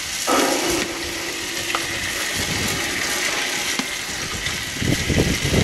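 Oil-seasoned food sizzling steadily on a preheated gas grill, with a few low bumps near the end.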